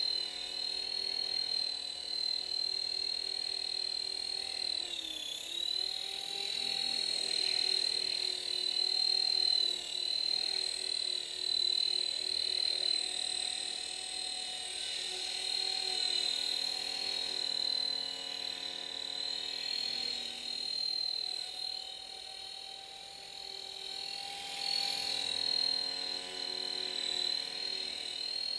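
Dynam E-Razor 450 electric RC helicopter in flight: a steady, high-pitched motor and gear whine over the rotor's hum, its pitch held nearly constant in idle-up mode. The pitch dips briefly about five seconds in, and the loudness swells and eases as the helicopter moves around.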